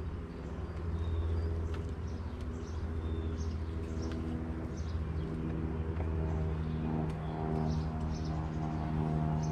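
Honeybees buzzing around an open hive in a steady, low hum that wavers slightly in pitch, with birds chirping now and then.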